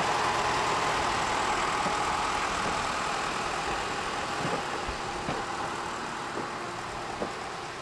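Engine of a small 1957 diesel locomotive running as it moves off along the track with a wagon, gradually fading as it draws away. A few faint knocks come through in the second half.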